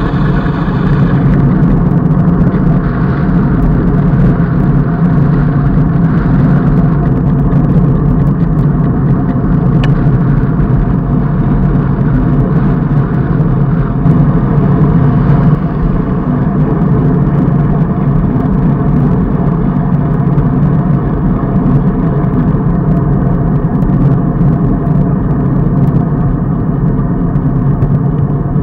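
Steady wind rush and road noise buffeting a bike-mounted camera's microphone as a road bicycle rolls along tarmac at speed.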